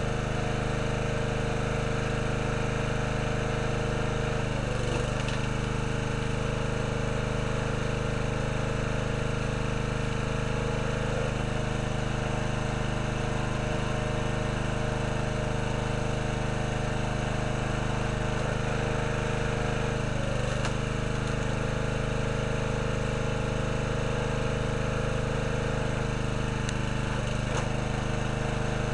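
Small gasoline engine of a hydraulic log splitter running steadily, its pitch dipping briefly about four times as the ram loads up pushing through logs, with a few faint sharp cracks.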